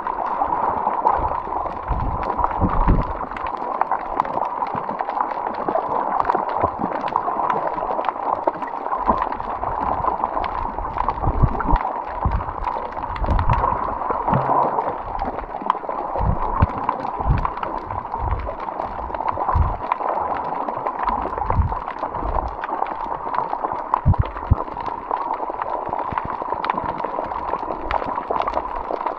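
Water gurgling and sloshing close to the microphone, with irregular low thumps.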